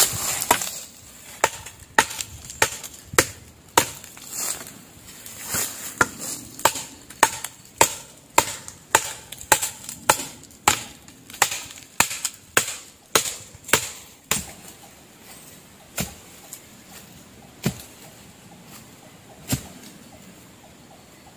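Wood being chopped by hand with a blade: a steady run of strokes about every half second to second for most of the first fourteen seconds, then three spaced strokes near the end.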